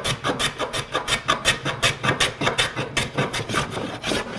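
Jack plane taking quick cross-grain strokes on a glued-up hardwood panel, several rasping cuts a second in a steady rhythm. This is roughing the panel down toward its thickness gauge line.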